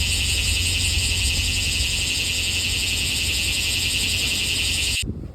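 Cicada calling: a loud, steady, unbroken high buzz over a low rumble, cut off abruptly about five seconds in.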